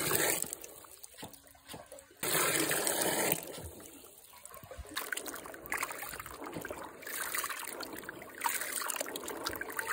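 Water pouring into a plastic basin of Assyrian plum fruits, briefly at the start and again in a louder spell of about a second from two seconds in, then lighter splashing and trickling with small clicks among the fruit as they are rinsed.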